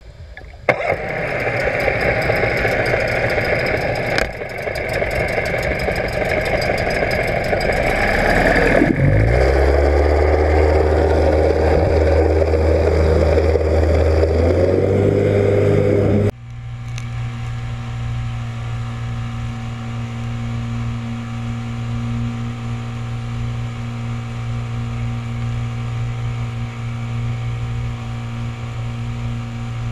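2005 Mercury 25 hp two-stroke outboard running, heard first underwater beside the spinning propeller as a dense churning noise. About nine seconds in its note climbs in pitch and then holds steady. About sixteen seconds in the sound changes abruptly to the engine's steady running note heard from the boat under way, with water rushing past.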